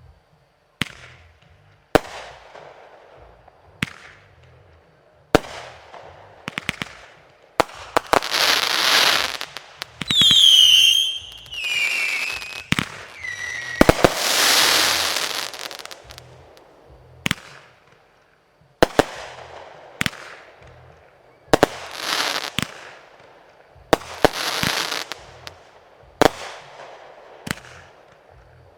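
Fireworks display: a string of sharp aerial shell bangs at irregular intervals, with long crackling hiss bursts. Several whistling tones fall in pitch about ten seconds in.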